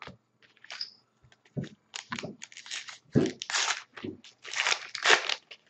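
Foil wrapper of a hockey card pack being torn open and crinkled in irregular crackling rips, loudest in the second half, with a few dull knocks of cards being handled.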